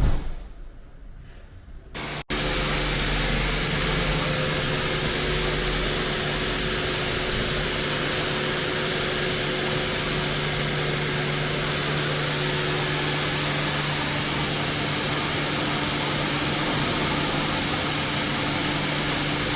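Pressure washer spraying a jet of water to clean caked dirt and oil out of a JCB's clogged hydraulic oil cooler. The water jet makes a steady loud hiss over the hum of the washer's pump, starting about two seconds in after a brief knock.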